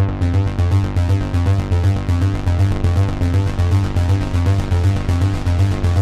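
Cherry Audio DCO-106 software synthesizer, an emulation of the Roland Juno-106, playing its 'Reed Bass' preset: a deep synth bass line in a fast, even run of repeated notes. The tone turns brighter right at the start as the filter cutoff is raised.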